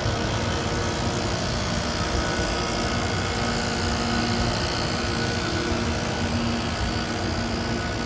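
A steady mechanical hum over a constant wash of noise, with faint steady tones that come and go.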